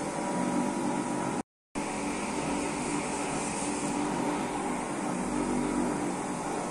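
Small gas-fired drum coffee roaster running: a steady mechanical whir from its drum motor, fan and burner, with a faint hum. The sound cuts out for a moment about one and a half seconds in.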